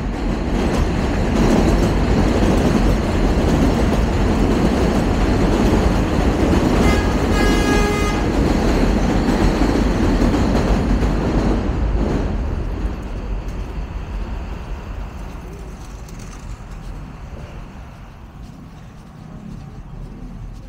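An elevated subway train passing overhead, loud for about twelve seconds and then fading away. A short pitched tone sounds about seven seconds in.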